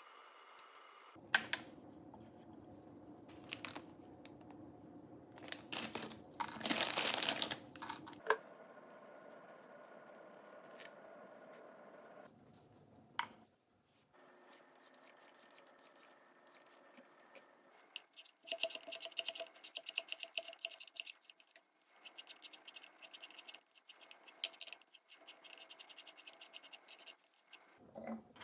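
Hand food preparation on a wooden chopping board: irregular scraping and clicking, with a loud noisy stretch about six to eight seconds in. From about eighteen seconds on, rapid scraping and clicking while a carrot is cut into thin strips.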